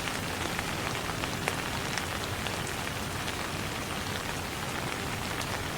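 Steady rain falling, an even hiss with scattered single drops ticking.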